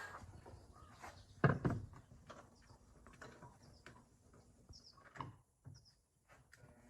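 Scattered light clicks and knocks of hand tools and wooden parts being handled, with two louder thumps about a second and a half in.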